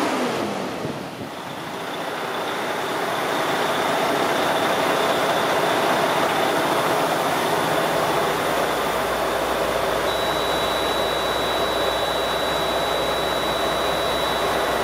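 2014 Freightliner Cascadia 113's diesel engine idling steadily. A deeper hum comes in about halfway through, and a thin, steady high-pitched tone joins about two-thirds of the way in.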